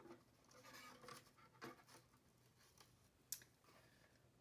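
Near silence: room tone with faint rustling and a few soft clicks, the sharpest about three seconds in.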